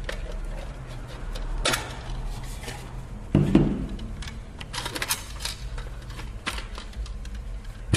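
Scattered clicks, taps and light clatter of small plastic and metal parts being handled as a PlayStation 3 Blu-ray drive is taken apart, with a louder, duller knock about three and a half seconds in.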